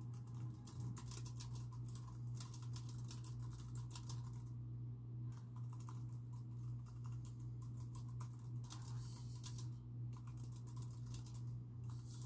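Typing on a computer keyboard: runs of quick key clicks, pausing briefly about halfway through and again near the end, over a steady low hum.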